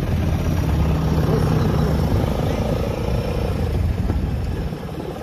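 Honda XR190 motorcycle's single-cylinder engine running as the bike rides along, a steady low rumble that eases off slightly near the end.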